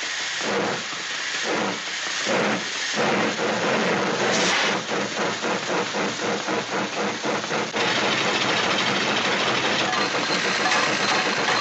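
Steam-train chugging sound effect: slow puffs about a second apart speed up into a fast, even chug, which turns into a steady rushing hiss about eight seconds in.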